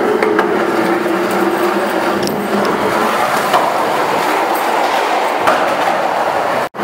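Skateboard wheels rolling over a concrete parking-garage floor: a steady rolling rumble with a few sharp clacks, cutting off abruptly near the end.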